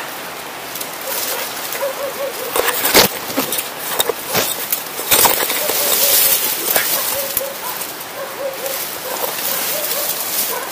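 Leaves and branches rustling with scattered twig cracks and crunches as a person forces a way through dense brush on foot, loudest about halfway through. A faint warbling note repeats in short runs in the background.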